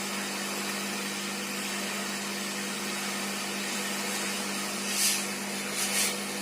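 Hot air rework gun blowing steadily with a low hum, with two brief louder hissing bursts about five and six seconds in.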